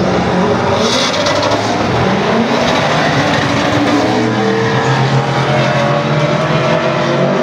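A drag car accelerating hard down the strip: the engine note climbs in several rising sweeps as it shifts up through the gears, then holds a steady high note. A short burst of noise comes about a second in.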